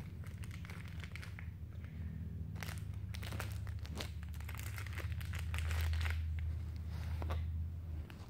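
Crunchy plastic blind-bag packaging crumpled and crinkled by hand, a dense run of irregular crackles.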